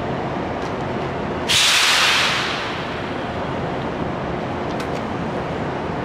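A sudden loud hiss of compressed air from a JR West 103 series electric train's pneumatic system, about a second and a half in, dying away over about a second. A steady low hum from the train runs throughout.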